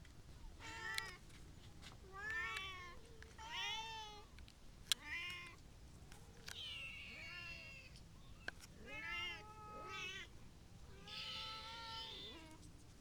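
Kittens meowing again and again, about nine short high calls that rise and fall in pitch, two of them longer and harsher. A sharp click sounds about five seconds in.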